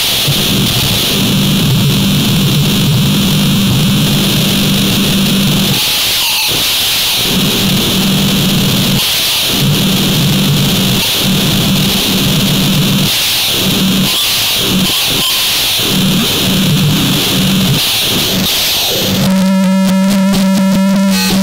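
Harsh noise music: a loud, dense wall of distorted noise with a hissing upper layer and a low hum that keeps dropping out and returning. About nineteen seconds in, it switches to a steady buzzing tone that pulses rapidly.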